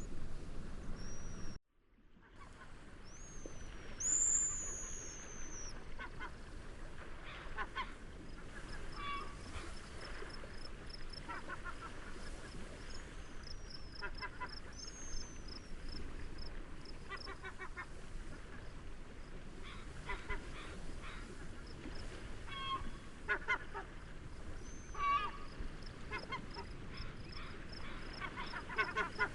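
Seaside nature ambience: a steady rush of wind and waves, with waterbirds calling in repeated short series. Short high whistled bird calls come now and then, and from about ten seconds in there is a steady fast ticking of crickets. The whole sound cuts out for about half a second near the two-second mark, then fades back in.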